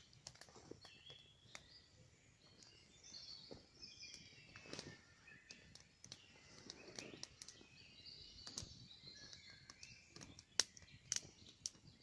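Faint dawn chorus of several songbirds chirping and singing in short overlapping phrases, with scattered sharp clicks, loudest near the end.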